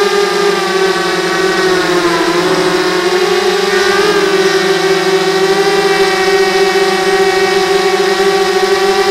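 Y6 mini hexacopter's six brushless motors and propellers whining close to the onboard camera. The pitch wavers and dips about two to three seconds in with a throttle change, then holds steady.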